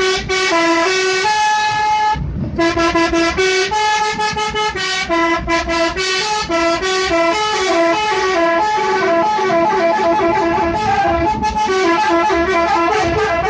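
Bus 'telolet' horn, a multi-tone musical air horn, playing a quick melody of stepped notes, with a brief break about two seconds in; the notes come faster in the second half.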